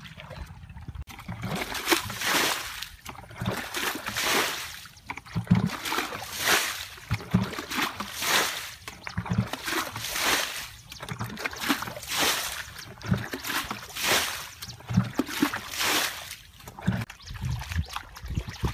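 Repeated splashing and sloshing in shallow muddy water, roughly one splash a second, each with a dull low thud.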